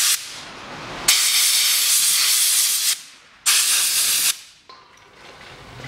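Compressed-air blow gun hissing in three blasts, blowing dirt out of a brake caliper bracket: a brief one at the start, a long one of about two seconds starting about a second in, and a shorter one a little after that.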